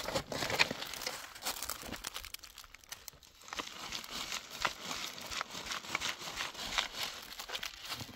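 Crinkling and rustling of something being handled, a dense run of small crackles and clicks, with a brief lull about three seconds in.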